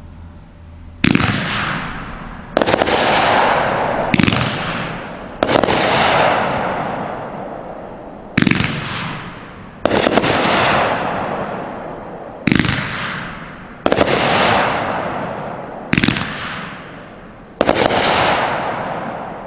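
Hardcore Pyro 'Mazikeen' 500-gram 20-shot firework cake firing: about ten shots, one every one to three seconds, each a sharp bang followed by a fading hiss and crackle of strobing stars.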